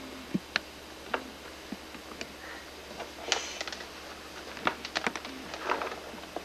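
Scattered light clicks and taps with short rustles, from small objects being handled in and around a cardboard storage box. There is a louder rustle about three seconds in and a cluster of taps and rustles near the end.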